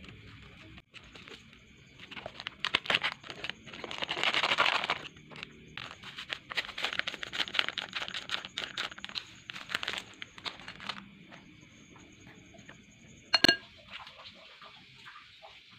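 Plastic seasoning packets crinkling and rustling as they are handled and emptied over a bowl, in a dense run of crackly rustles. Near the end, one sharp ringing tap of a utensil against the glass mixing bowl.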